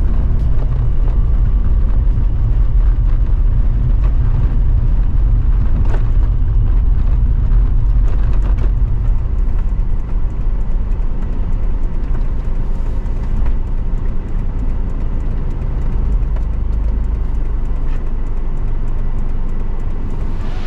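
A van driving on a rough dirt road, heard from inside the cabin: a steady low rumble of engine and tyres, with a few brief knocks. The rumble eases a little about halfway through.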